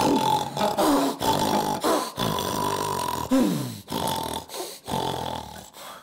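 A man imitating heavy snoring with his throat and mouth: a quick run of short, noisy snores, each under a second, with brief gaps between them and a falling, gasping glide about three seconds in.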